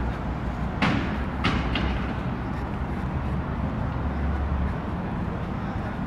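Steady low rumble of roadway traffic and outdoor city noise, with three sharp knocks between about one and two seconds in.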